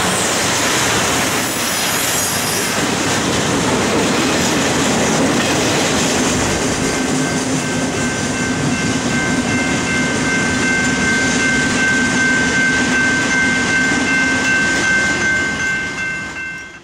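Loaded freight train's flatcars rolling past with steady wheel-and-rail rumble and clatter; about six seconds in a steady high-pitched wheel squeal sets in as the end of the train moves away. The sound fades out near the end.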